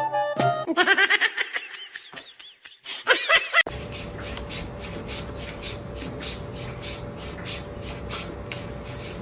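High-pitched laughter in quick repeated bursts. About three and a half seconds in it cuts to a steady hum with a faint even tone and a soft ticking about three times a second.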